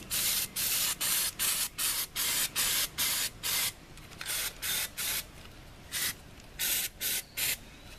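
Aerosol can of undercoating spraying in many short hissing spurts, about three a second, the later ones fainter and more spread out. The can is nearly empty.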